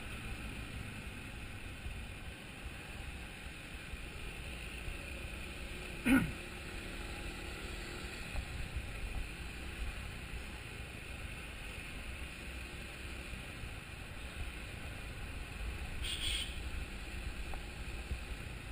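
Motorcycle under way in slow city traffic: steady engine and road noise with wind rumble on the microphone. About six seconds in there is a brief loud sound that drops quickly in pitch, and a short hiss comes about sixteen seconds in.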